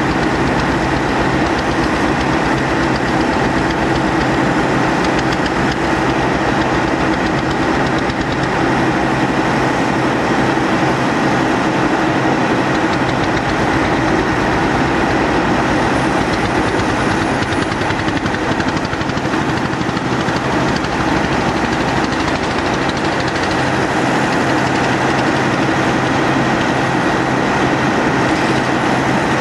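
An engine running steadily at constant speed, with a continuous even hum and no change in pitch.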